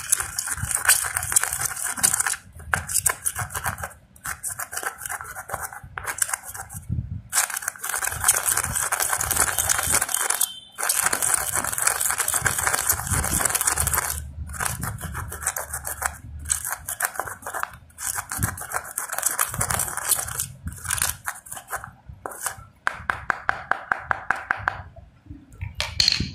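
Metal hammer rod pounding and crushing cumin seeds in a half coconut shell, grinding them to powder. The strokes come very fast in runs of one to a few seconds, broken by short pauses.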